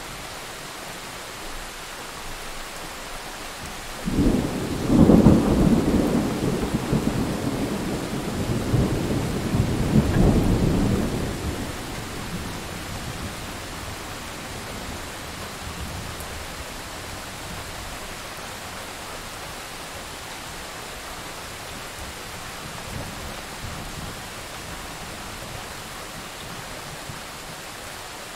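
Steady rain with a thunderclap about four seconds in that rumbles for several seconds, swells again around ten seconds, then dies back into the rain.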